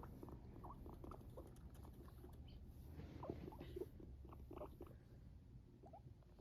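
Guinea pig making a run of faint, short squeaks and chirps, many in quick succession, some rising in pitch.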